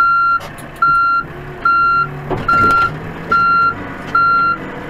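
Backhoe's reverse alarm beeping steadily, about one beep every 0.8 seconds, over the diesel engine running. A few metal clanks about two seconds in.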